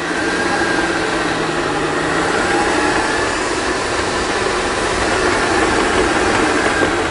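Electric stand mixer running steadily with a motor whir and a faint whine, its beater mixing flour into a butter and egg mixture for cookie dough.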